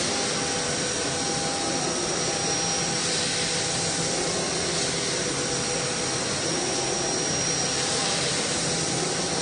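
CNC machining center's spindle running with an end mill cutting aluminium: a steady high whine over an even hiss, with no break.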